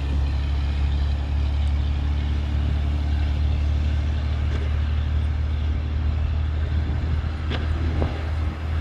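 Heavy truck engine running steadily with a low drone, with two short sharper sounds near the end.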